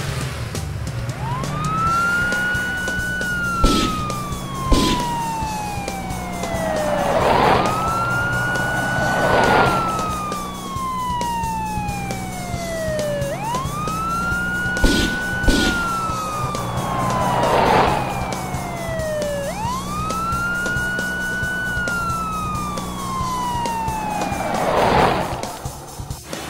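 Cartoon police car siren wailing in four slow cycles, each rising quickly, holding, then falling away slowly. Under it run background music with a steady low drone and a few whooshing sweeps.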